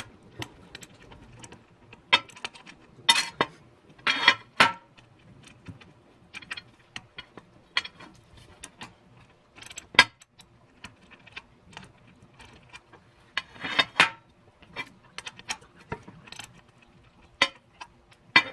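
Scattered metallic clicks and clinks of an Allen key working on scooter bolts and parts during reassembly, uneven in timing, with a few sharper knocks standing out.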